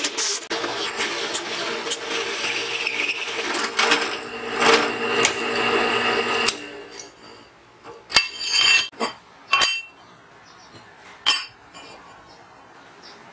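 Drill press with a hole saw cutting into a steel plate: a steady motor hum under metal grinding and scraping, which stops suddenly about six and a half seconds in. After that come a handful of separate sharp metal clinks and knocks from steel pieces being handled.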